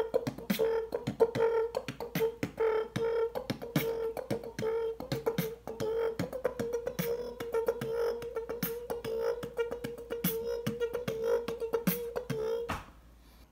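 Beatboxing: a steady hummed note held under a quick run of mouth clicks and snare-like pops, cutting off suddenly near the end.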